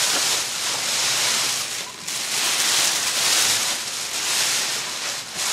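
Foil emergency space blanket crinkling and rustling as it is pulled back and handled over the patient. The rustle is loud and uneven, with a brief dip about two seconds in.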